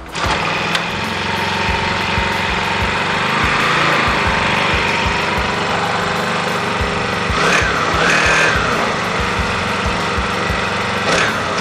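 Mini Mamba 40cc mini dirt bike's small single-cylinder engine catching and running right away, a fast even firing rhythm, revved up and down briefly a few times past the middle and near the end.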